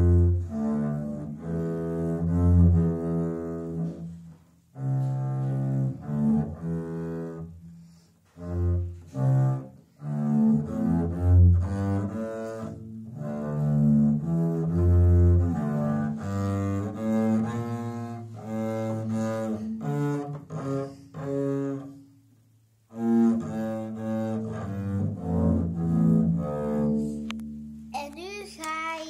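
Double bass bowed by a child, playing a slow, simple tune one sustained note at a time, with short breaks between phrases.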